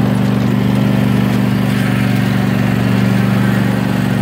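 Zero-turn riding mower's engine running steadily at a constant speed, heard from the driver's seat.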